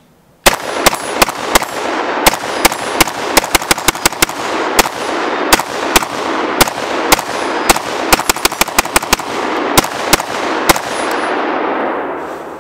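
AR-15 pistol with a muzzle compensator fired rapidly, about thirty shots at roughly three a second in uneven strings. Echo rolls on between the shots and dies away over the last couple of seconds after the firing stops.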